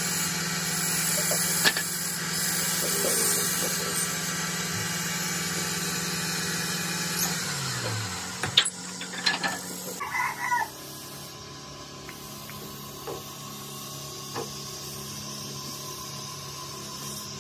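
A steady electric motor hum that winds down in pitch about seven and a half seconds in, as when a machine is switched off. A few sharp knocks follow, and after that a quieter steady hum.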